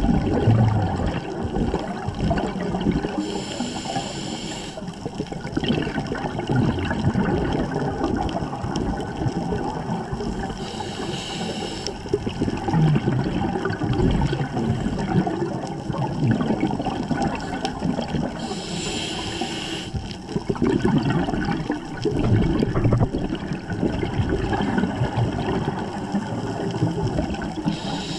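A scuba diver breathing through a regulator underwater: a short hiss on each inhale about every seven to eight seconds, with the bubbling rumble of exhaled air between.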